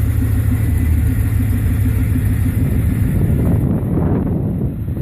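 1996 Chevrolet Camaro Z28's LT1 V8 idling steadily, left running to warm in freezing weather. The low hum turns rougher about three and a half seconds in.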